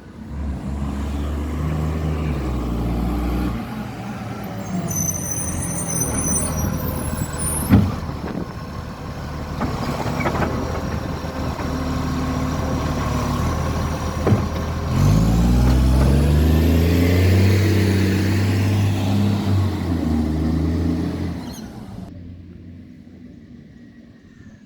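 Garbage truck's diesel engine revving hard as it pulls away and climbs through the gears, loud and harsh from a very bad exhaust leak. There are two sharp bangs along the way, and the truck fades away near the end.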